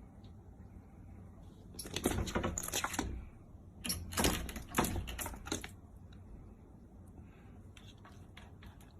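A cat clawing at a mesh window screen, the screen door rattling and scratching in two bursts of a second or two each, with a few lighter clicks near the end.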